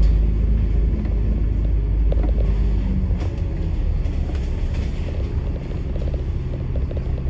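Bus engine and road rumble heard from inside the moving bus, low and steady, with the engine note shifting about three seconds in and a few light rattles.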